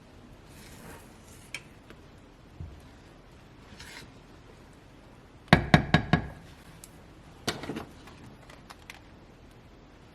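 Kitchenware clattering: a quick run of four or five sharp knocks about halfway through, a smaller cluster a second or two later, and a few scattered light clicks.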